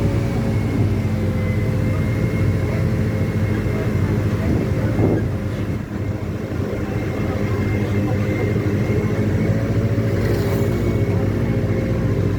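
Diesel engine of a Mercedes-Benz OF-1722M bus with Caio Apache Vip II bodywork, running steadily. Its level drops briefly about six seconds in, then comes back.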